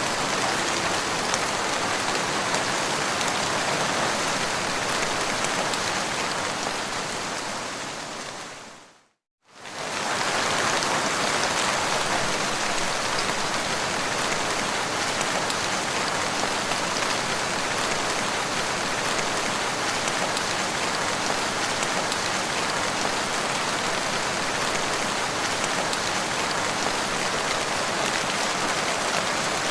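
Steady rain falling on a surface, an even hiss of drops. About six seconds in it fades away to silence and it returns at full strength within a second, near ten seconds in.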